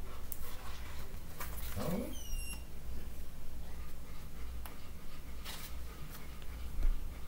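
A hardcover picture book being handled and opened, with faint rustles and taps of the cover and pages over a low steady hum. About two seconds in comes a short rising sound, then a brief high squeak that dips slightly in pitch.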